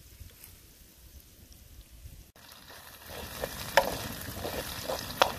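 Lemongrass, chilies and lime leaves sizzling in a steel wok over a wood fire. The metal spatula scrapes and clinks against the pan as they are stirred. The sizzling starts a little before halfway in, after a faint stretch, with two sharp spatula clanks near the end.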